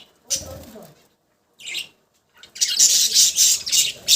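Pet budgerigars calling: a short high squawk about a second and a half in, then loud, continuous high-pitched chattering and squawking from about two and a half seconds in.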